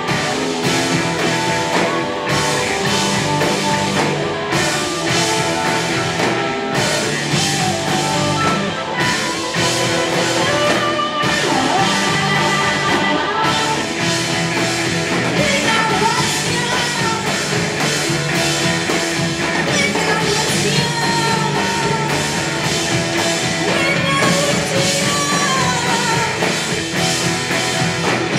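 A live punk rock band playing loud, with a sung lead vocal over guitars and drums.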